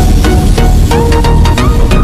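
Electronic background music with a steady beat and held synth notes.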